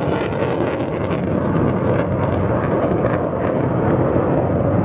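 Saab 37 Viggen's Volvo RM8 afterburning turbofan jet engine running at high power as the jet flies its display, a steady loud roar with scattered crackles.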